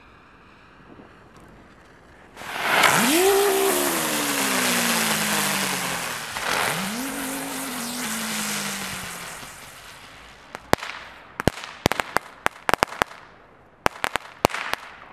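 Two Chili Spinners ground-spinner fireworks: a loud hiss with a whirring tone that rises fast as each one spins up, then slowly sinks as it winds down, one after the other. Near the end comes a run of sharp crackling pops.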